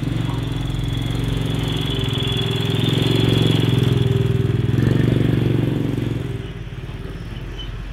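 Engine of a slow-moving road vehicle running close by, swelling over a few seconds and then fading, with a faint high squeal over the loudest part.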